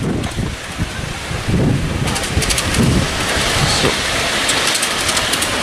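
Miniature railway train approaching along the track, its wheels rumbling and clicking on the rails more and more from about two seconds in, under wind buffeting the microphone.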